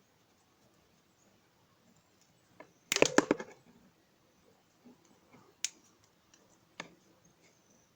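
A quick cluster of sharp clicks and knocks about three seconds in, then two single clicks, from small parts of an egg beater being handled during its repair.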